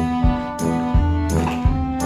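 Background music with a steady beat and sustained string-like tones.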